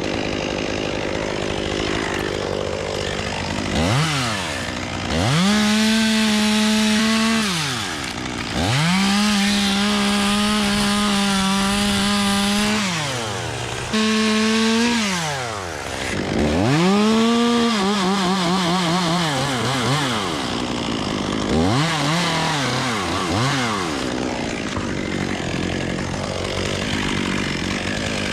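Chainsaw cutting magnolia wood: the engine revs up to full throttle and holds there for a few seconds at a time, then drops back to idle, about six times over, with the longest cuts running three to four seconds. In the cut in the second half the pitch wavers under load, and near the end come two short blips of the throttle.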